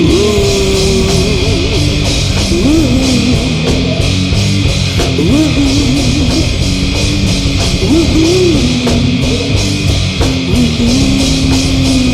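Stoner metal band playing live: electric guitar and drums in a wordless passage, with a lead line that bends up and down in pitch and settles on a long held note near the end.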